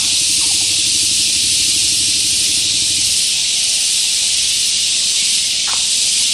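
Loud, steady high-pitched insect drone from the surrounding vegetation, with a low rumble under it that stops about three seconds in and a couple of short chirps.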